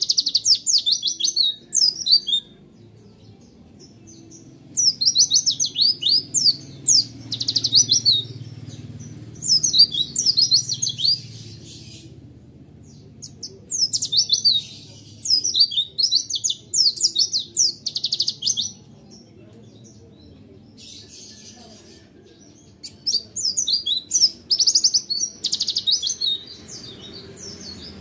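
A caged white-eye (pleci) singing in rapid bouts of high, twittering notes, several of them ending in a very fast rolling trill. This is the fast 'roll tembak' song that keepers prize. About four bouts come with short pauses between them.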